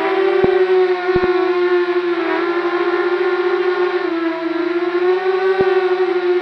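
A loud, steady whine with many overtones, drifting slowly up and down in pitch, with a few sharp clicks, on the audio of a Runcam 2 action camera that has a sound problem.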